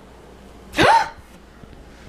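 A person's short squeal rising in pitch, once, about a second in.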